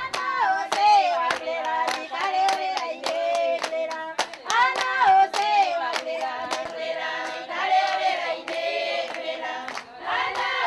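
A group of women singing together to a steady rhythm of hand claps.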